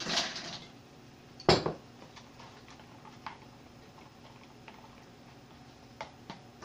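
A utensil knocking and clicking against a small bowl as melted butter and seasoning are stirred: a short scrape at the start, one sharp knock about a second and a half in, then a few light clicks.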